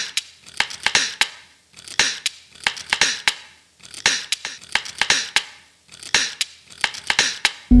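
Repeated scratchy, rasping strokes with sharp clicks, in four groups of several strokes each, about two seconds apart.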